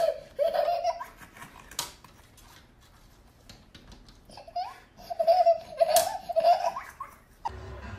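Toddler laughing in high, repeated giggles, breaking off about a second in and starting again around the middle, with a couple of sharp taps.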